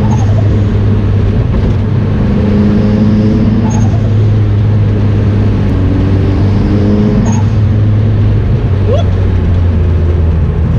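Turbocharged SR20DET inline-four of a 1995 Nissan Sentra B13, heard inside the stripped cabin, running under load as the car is driven. Its note shifts every few seconds, with a short faint high hiss about every three and a half seconds.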